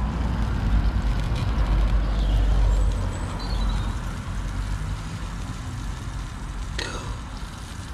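Food sizzling and bubbling in a RidgeMonkey sandwich pan over a gas-canister camping stove, with the burner's steady low rush beneath it. The sound is loudest for the first three seconds and then eases off. A plastic spatula knocks on the pan about seven seconds in.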